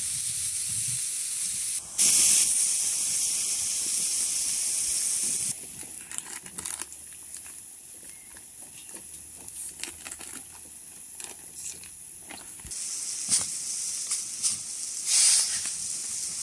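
A wok of fish stew boiling hard and sizzling, a steady hiss of bubbling and steam that is loudest about two seconds in. It drops away in the middle to scattered small clicks and rustles, then the hiss comes back near the end.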